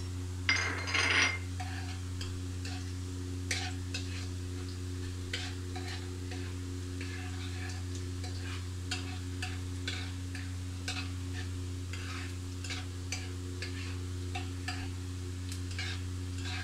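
Minced garlic sizzling in hot ghee in a wok, with small crackles and pops throughout and a spatula stirring and scraping the pan, loudest about half a second to a second and a half in. A steady low hum runs underneath.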